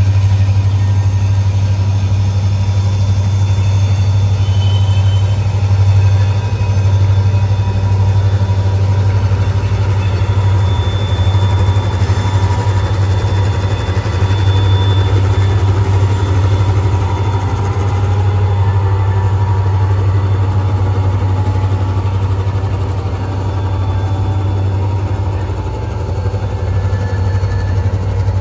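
Diesel freight locomotives crossing a railway bridge overhead, their engines a steady low drone, with the train's freight cars rolling across the bridge behind them.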